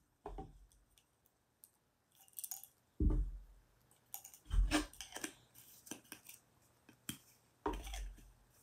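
Handling noises as small objects are fitted into place: scattered light clicks and rustles, with a few short dull thumps about three seconds in, halfway, and near the end.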